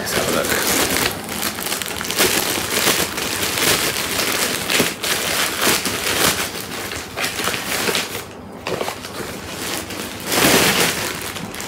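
Clear plastic packaging bag crinkling and crackling as it is handled and pulled open to unwrap a pair of jeans, with a short lull about two-thirds of the way through.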